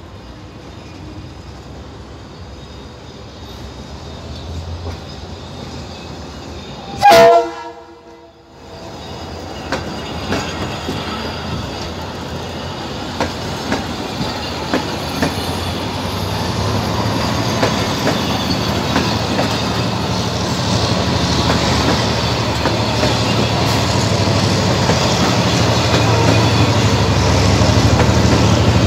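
A diesel-hauled passenger train's horn gives one short, loud blast about seven seconds in. Then the train rolls past with a low rumble and wheels clacking over the rail joints, growing steadily louder as the diesel locomotive draws near.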